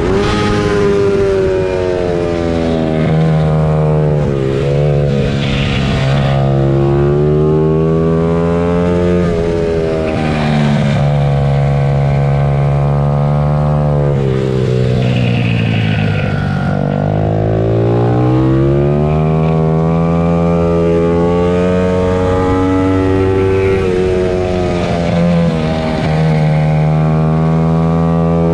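Several Stock 90 class pit bikes racing, their small engines revving up and falling off over and over as the riders accelerate and slow for corners, with more than one bike heard at once.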